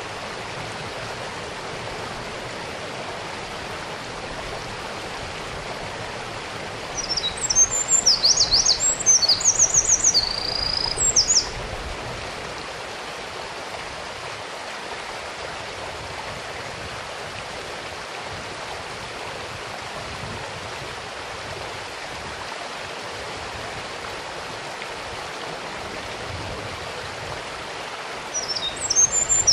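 A Eurasian wren sings one rapid, high, trilling song phrase of about four seconds roughly a third of the way in, and starts another near the end. Between phrases there is a steady rush of a mountain stream.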